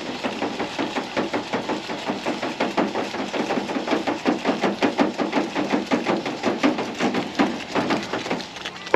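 Truck shower's small electric water pump running while it primes, with a rapid, uneven pulsing as it pushes air out of the line.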